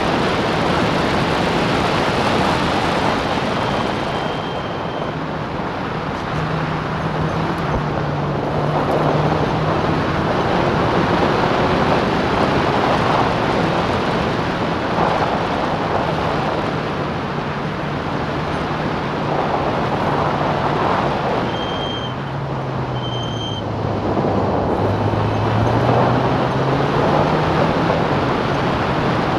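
Onboard sound of a Clubman sports racing car at speed: the engine running under load beneath heavy wind and road rush. Near the end the engine note drops as the car slows, then rises again.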